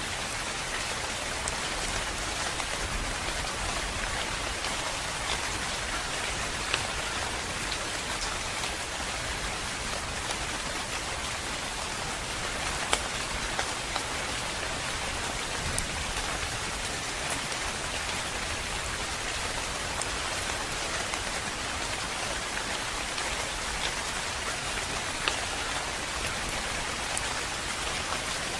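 Steady, calm rain falling, an even hiss with scattered individual drops ticking on a surface, a few sharper drip hits standing out now and then.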